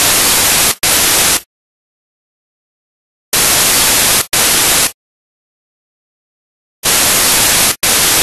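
Loud bursts of static hiss in pairs, a longer burst followed at once by a shorter one, repeating three times about every three and a half seconds, with dead silence between the pairs.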